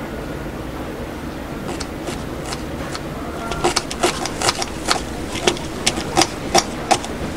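Steady background hum with a run of sharp taps or clicks starting a couple of seconds in, about two to three a second and growing louder.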